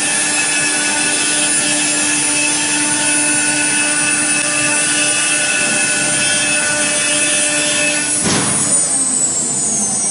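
An automatic-tool-change CNC router's spindle runs at speed with a steady high whine made of several tones, working through the second tool's part of the program. About eight seconds in the steady whine stops and the spindle's pitch glides down as it winds down at the end of the program.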